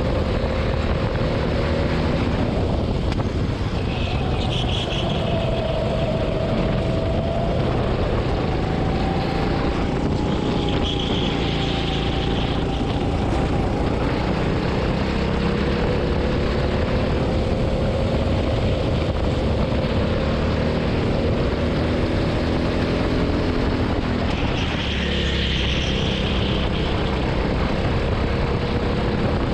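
Rimo go-kart's engine running at racing speed, heard from the kart itself, its note rising and falling with the throttle through the corners over a steady rumble. A few brief higher-pitched hisses cut in now and then.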